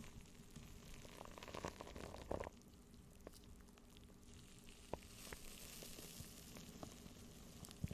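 Faint close-miked crackling with scattered light taps and clicks, a denser rustle about two seconds in, and a soft high hiss from about halfway through.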